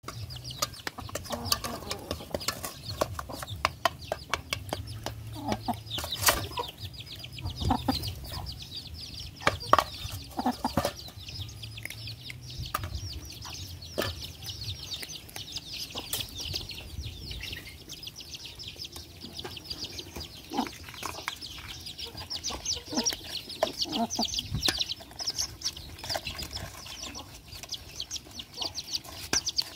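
Puppies eating from a metal basin: chewing, with many sharp clicks and taps of teeth and bones against the metal, and a hen clucking among them.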